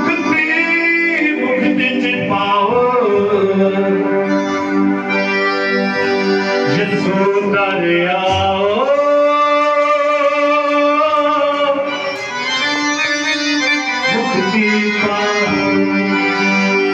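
A man sings a devotional worship song through a microphone and PA, holding long, sliding notes, over held electronic keyboard chords.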